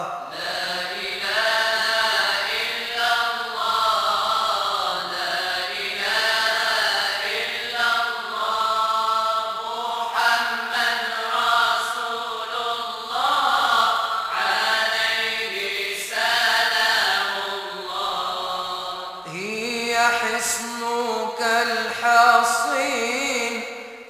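Voices chanting a Moroccan madih, a devotional praise song for the Prophet, in long, drawn-out melodic phrases.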